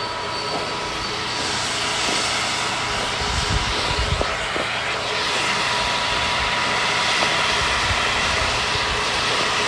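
An airplane flying overhead: a steady rushing drone that grows louder about a second and a half in and again around five seconds.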